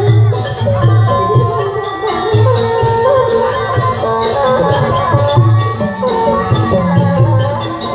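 Thai likay theatre accompaniment: an instrumental melody over repeated deep drum strokes.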